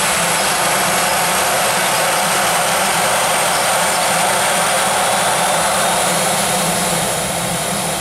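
Jet airliner engines running steadily at taxi power: a dense, steady rush with a thin high whine that falls slightly in pitch.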